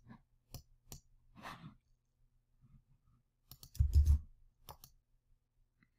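Computer mouse and keyboard clicks in a small room: a few single clicks, a soft breath about a second and a half in, then a louder cluster of clicks with a low thump around four seconds, and two more clicks shortly after.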